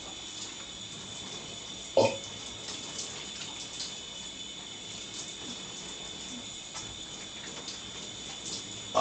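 Shower water running with a steady hiss, and one short burp about two seconds in.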